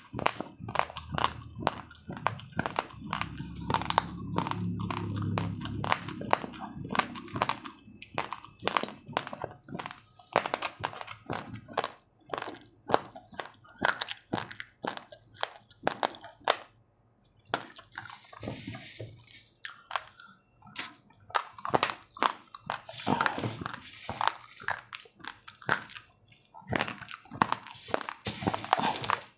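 Raw, uncooked rice grains being crunched and chewed in the mouth: a rapid, continuous run of sharp crunches.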